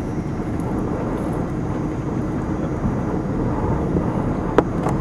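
Steady low rumble of wind on the microphone, with two sharp clicks near the end.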